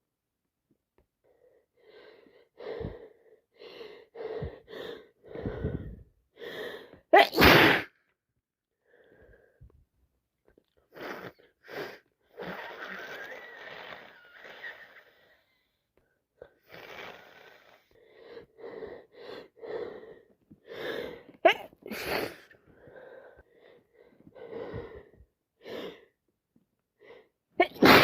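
A woman with a head cold sneezing, each sneeze led by a run of short catching breaths. Three loud sneezes stand out: about seven seconds in, the loudest, another around twenty-two seconds, and one at the very end.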